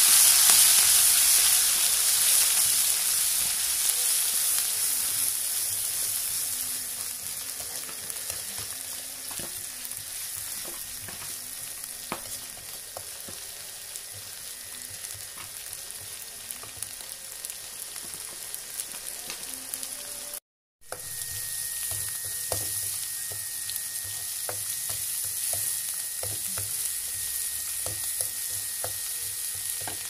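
Ground chilli spice paste sizzling in hot oil in an aluminium wok, stirred with a metal spatula that scrapes and ticks against the pan. The sizzle is loudest at first and dies down over the first several seconds, settling to a steady, quieter frying hiss. The sound cuts out for a moment about two-thirds of the way through.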